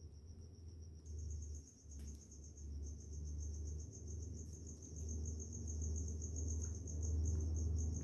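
A cricket chirping: a high, fast, evenly pulsed trill that keeps going without a break, over a low hum.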